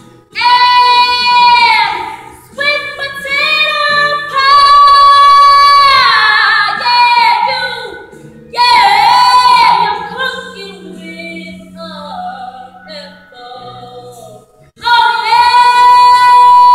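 A young woman singing solo, belting long held high notes with bends between them. The passage drops quieter and lower partway through, then ends on a loud, sustained final note.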